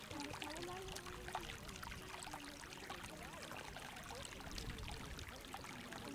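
Hot geothermal stream water running and trickling, with faint voices in the distance.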